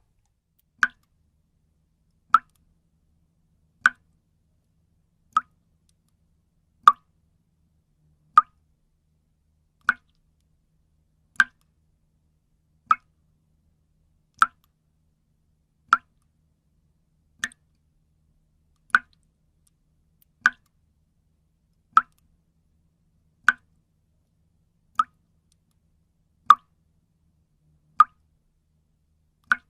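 Water dripping one drop at a time, each drop a short pitched plop. The drops fall at an even pace, about one every second and a half.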